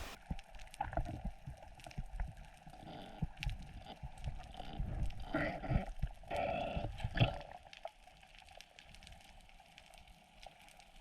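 Underwater dive audio: irregular gurgling and sloshing water, louder for the first several seconds and then quieter.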